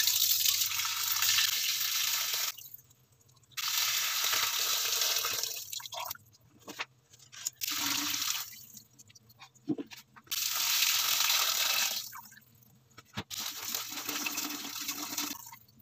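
Water pouring from jars of cracked green olives into a metal mesh strainer in a sink, in five pours of a second or two each with short pauses and a few small knocks between. This is the olives' soaking water being drained off so that the olives lose their bitterness.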